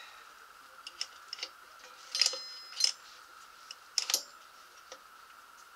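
Light metallic clicks and clinks of small parts and fasteners being handled and fitted at the recoil starter of a Robin engine. The clicks come a few at a time, the clearest about two seconds in, near three seconds and around four seconds, over a faint steady hum.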